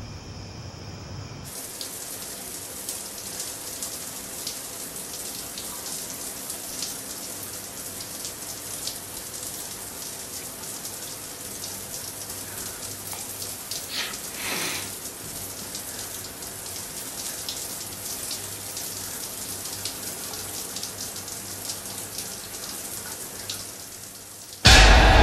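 Steady rain, a dense patter of drops, then a sudden loud thunderclap near the end.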